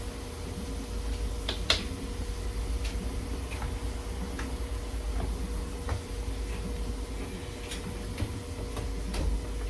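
A kitchen knife chopping bell peppers on a cutting board: sharp, uneven taps about once a second, over a steady hum.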